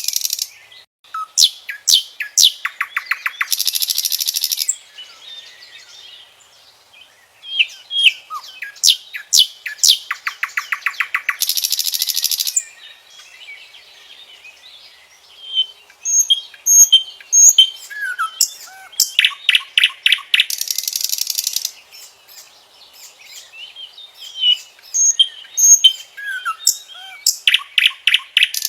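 Common nightingale singing: separate phrases of fast-repeated notes, dense buzzy trills, sharp whistles and clicks, with pauses of a second or two between phrases.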